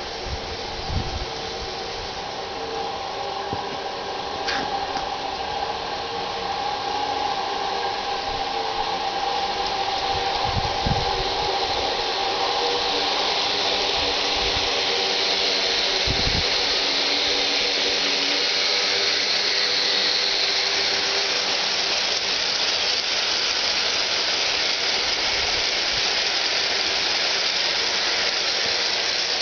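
G-scale garden-railway train passing: diesel locomotives humming with a few held tones, then a long string of hopper cars rolling over the track with a steady rushing noise that grows louder and holds as the cars pass. A few low thumps in the first half.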